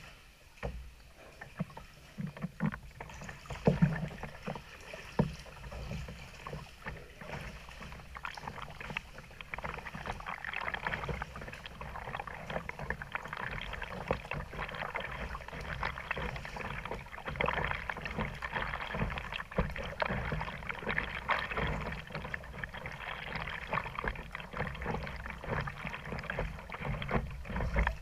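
Water splashing and lapping around a plastic sit-on-top kayak as it is paddled, with a couple of sharper splashes or knocks about four and five seconds in, then a steady run of small splashes.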